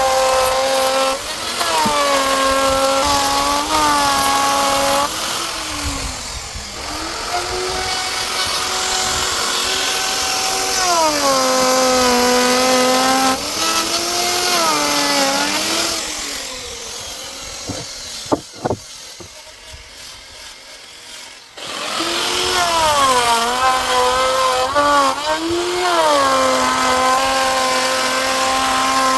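Electric power tool working wood. Its motor whine drops in pitch each time it bites into the wood and rises again as it runs free. It winds down past the middle, with a couple of sharp knocks in the lull, and starts up again a few seconds later.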